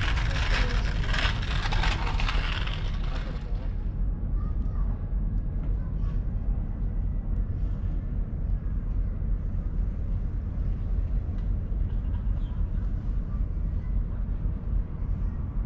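City street ambience: a steady low rumble, with voices in the first three or four seconds that then drop away.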